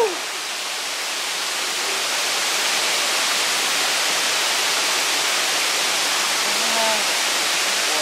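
Steady rushing of a waterfall, an even hiss of cascading water that holds unchanged, with a brief faint voice sound about seven seconds in.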